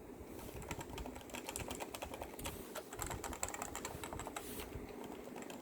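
Topre Type Heaven keyboard being typed on: a quick, irregular run of key strokes on its electrostatic capacitive rubber-dome (Topre) switches with 45 g key weight.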